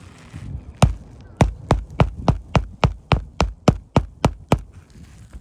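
Hand hammer driving a roofing nail into an asphalt shingle: about thirteen quick, evenly spaced strikes, starting about a second in and stopping near the end.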